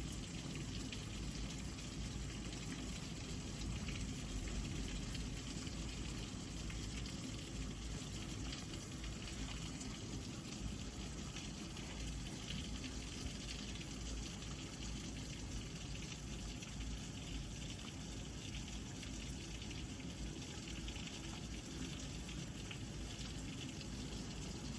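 Heavy rain pouring down steadily, an even hiss of downpour with no thunder.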